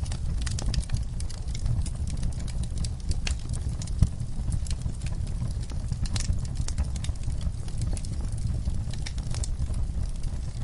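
Wood campfire crackling, with many quick sharp snaps and pops over a low steady rumble; one louder pop about four seconds in.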